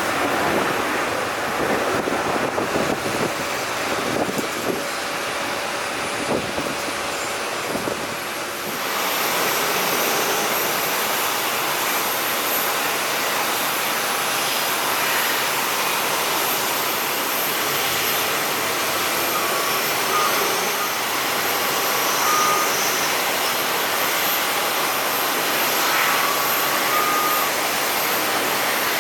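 Airport apron noise: a steady rush of jet engines, its sound changing abruptly about a third of the way in, with a few short beeps, typical of a ground vehicle reversing, in the later part.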